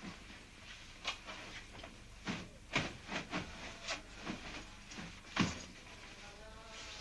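Pillows and bedding being handled on a bed: a run of soft fabric rustles and muffled pats as pillows are plumped and pushed into place, the loudest about five and a half seconds in. Faint music comes in near the end.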